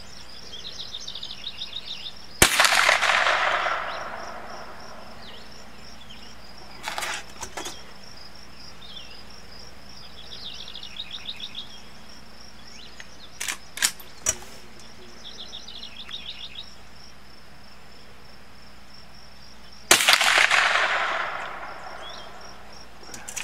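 Two rifle shots about 17 seconds apart, each followed by an echo that fades over a second or two. Between them come a few short clicks, while insects trill steadily and birds chirp.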